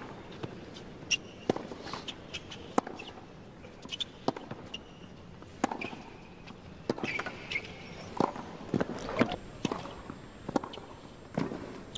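Tennis rally on a hard court: sharp pops of racket strikes and ball bounces at irregular intervals, with a few short squeaks of shoes on the court surface.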